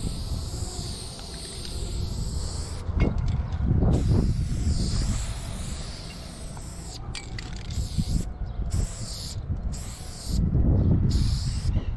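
Aerosol spray-paint can hissing in long stretches, cut off briefly several times between strokes while black outline lines are sprayed. Two low rumbles, about three seconds in and near the end, are the loudest sounds.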